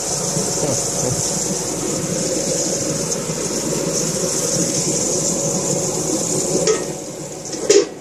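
Steady sizzling of food frying in a pan, dipping briefly near the end, with a sharp click shortly before it ends.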